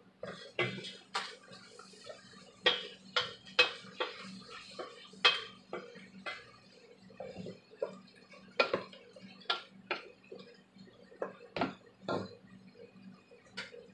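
Wooden spatula stirring chicken pieces in a large cooking pot, knocking and scraping against the pot in irregular clacks.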